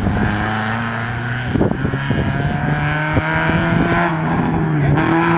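Race car's engine running hard on a dirt circuit, its pitch climbing slowly, with scattered sharp clicks throughout.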